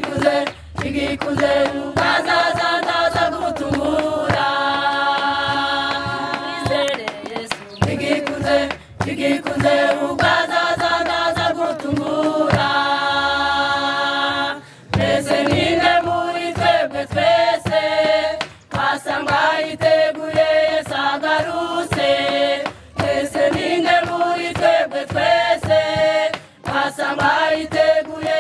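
Women's church choir singing a hymn together, long held notes in phrases broken by short pauses for breath.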